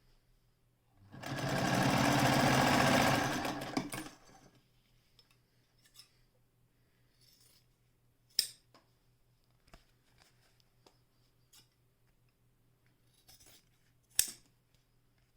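Singer 99K electric sewing machine running for about three seconds, stitching rapidly, then stopping. Later there are small ticks and two sharp clicks about six seconds apart.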